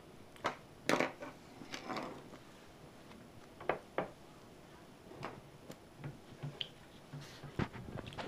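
A monkey's hands working a toy hatching egg in a metal pot of water. There are scattered light knocks and taps of the egg against the pot, and small water sounds as it is pushed around and then lifted out.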